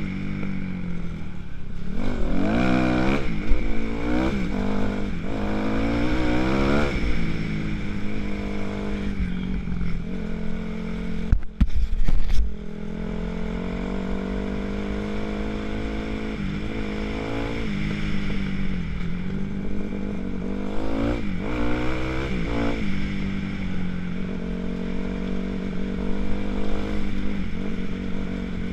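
2006 Kawasaki KX250F's single-cylinder four-stroke engine running under way, revving up and down again and again as the throttle is worked, with a steadier stretch in the middle. A short, loud burst of noise cuts in about twelve seconds in.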